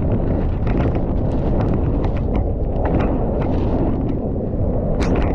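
Mountain bike ridden down a rough, wet trail: wind buffeting the camera microphone as a steady low rumble, with the bike clattering in frequent short, irregular knocks over the bumps.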